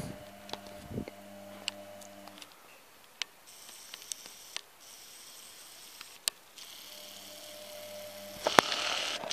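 A low steady hum that drops out about two and a half seconds in and comes back near the end, with scattered light clicks and a sharper knock near the end, typical of a handheld camera being moved and handled.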